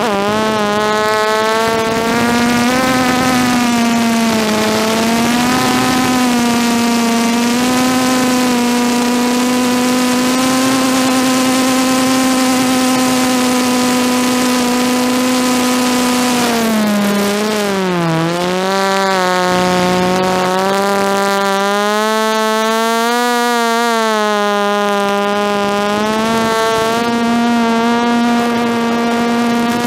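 DJI F330 quadcopter's brushless motors and propellers whining, with a steady hiss of air behind them; the pitch rises and falls with the throttle. It dips sharply a little past halfway through, wavers for a few seconds, then settles back to a steady whine.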